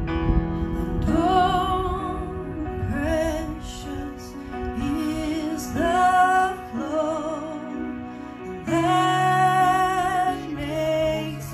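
A woman singing a slow hymn with vibrato over sustained chords on an electronic keyboard. Her long held notes each slide up into pitch.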